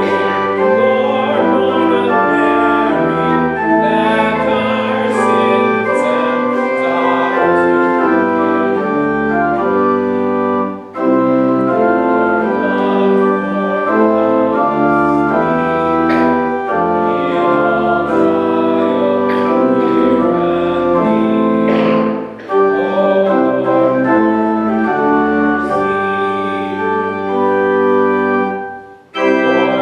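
Organ playing a slow piece in sustained chords, pausing briefly between phrases three times.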